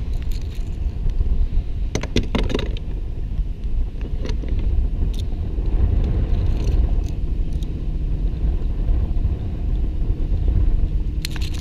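Wind buffeting the microphone, a steady low rumble, with a short cluster of sharp clicks about two seconds in.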